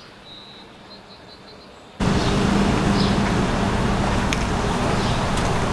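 Outdoor background noise: faint high chirps at first, then, from about two seconds in, a much louder steady din of traffic with a low hum. Birds chirp briefly over it several times.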